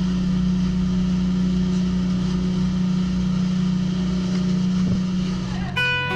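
Dive boat's engine running steadily at cruising speed, a constant low drone, with water rushing and spraying past the hull. Guitar music comes in just before the end.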